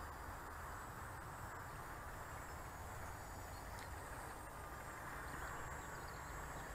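Faint, steady outdoor background noise: an even hiss over a low, unsteady rumble, with no distinct event.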